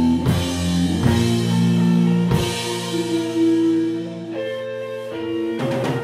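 Live rock band playing an instrumental passage: distorted electric guitars, bass guitar and drum kit with cymbal crashes. About four seconds in, the bass and drums drop back, leaving held guitar notes, then a quick drum fill near the end brings the full band back in.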